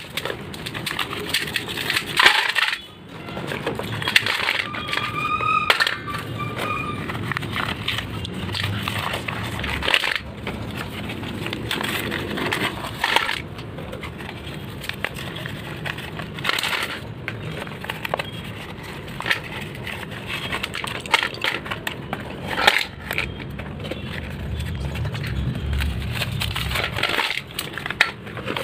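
Paper wrappers of slate pencil packets crinkling and tearing, with slate pencil sticks clattering and clinking into a stainless steel bowl in a long string of sharp clicks and knocks.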